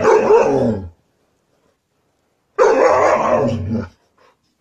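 A husky's 'talking' vocalization: two loud, pitched calls about a second long each, the second starting about two and a half seconds in.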